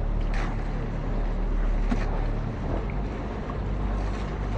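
A motorised bangka (outrigger boat) under way: its engine running steadily under the wash of sea water along the hull and outriggers, with a few brief splashes.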